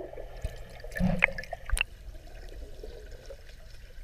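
Muffled water sound heard with the microphone underwater, with a few short bubbling gurgles about one to two seconds in.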